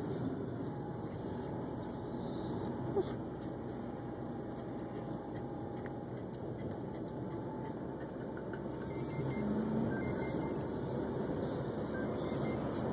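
Steady road and engine noise heard from inside a moving car, with a short high squeak about two and a half seconds in.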